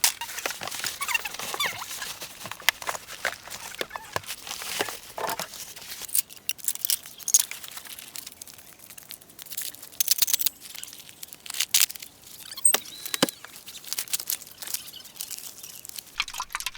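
Eating sounds: irregular clicks and scrapes of utensils against food containers, with some crinkling of packaging.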